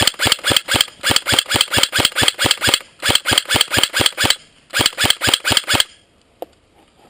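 G&G blowback electric AK47 airsoft rifle firing on full auto in three bursts of about eight shots a second. The first burst runs nearly three seconds, then two shorter ones follow after brief pauses.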